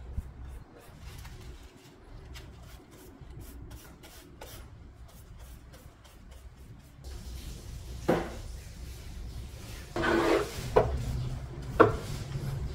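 Paintbrush bristles rubbing and scraping over a wooden panel in short strokes. About seven seconds in, this gives way to a few louder knocks and clatters of handling.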